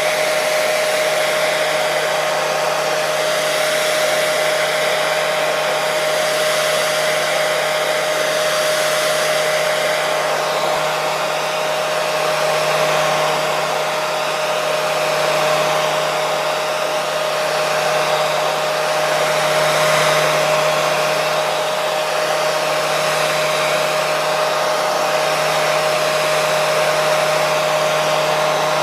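Electric hair dryer running steadily: a continuous rush of air with a steady motor whine, unchanging apart from slow slight swells in level.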